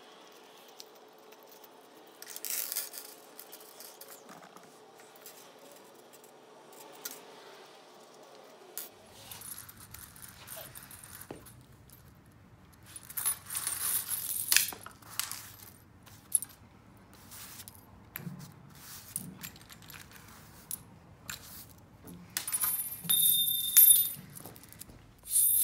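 Small brass lock-cylinder parts clinking and rattling against one another as they are handled and dropped onto a pile, in scattered bursts that are busiest around the middle and near the end.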